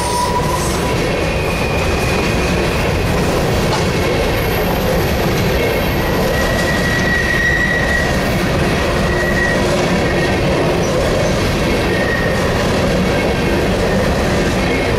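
Empty coal hopper cars of a freight train rolling past: a steady loud rumble of steel wheels on rail, with thin high wheel squeals that come and go.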